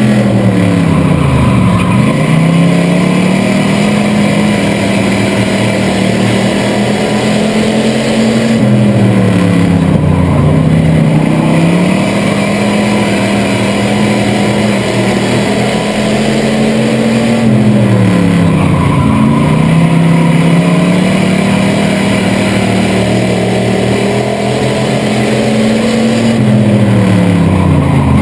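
305 cubic-inch Chevrolet V8 of a bomber-class race car, heard from inside its stripped cockpit. It runs hard on the straights, then drops in revs into each turn and climbs back out, about every nine seconds.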